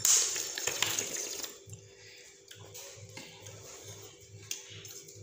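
Loud slurping of noodles sucked straight from a plate, a hissing rush lasting about a second and a half.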